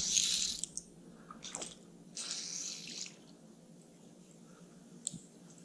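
Two short hissing splashes of water, the first right at the start and the second about two seconds in, with a couple of faint clicks between and after.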